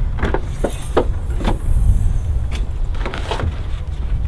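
A hatchback's rear hatch being unlatched and lifted open: a series of short clicks and knocks over a steady low rumble.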